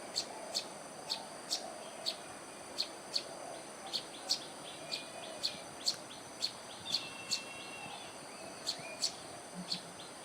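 Birds chirping: short, sharp calls repeating about twice a second, over a steady high-pitched whine.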